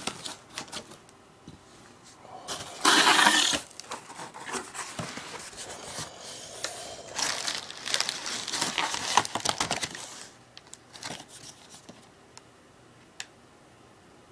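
Cardboard shipping box flaps and plastic air-cushion packing being handled: bursts of rustling and crinkling, the loudest lasting about a second some three seconds in, more rustling a few seconds later, then a few small ticks.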